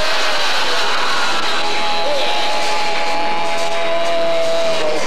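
Live rock band playing loud, with electric guitar to the fore; a single note is held for about two seconds in the second half.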